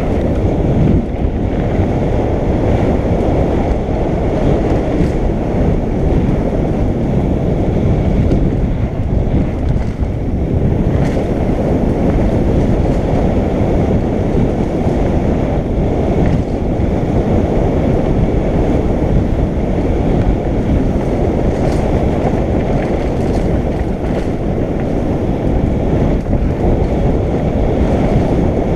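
Mountain bike rolling fast down a dirt trail: a steady rumble of tyres and wind buffeting the microphone, with a few faint rattles.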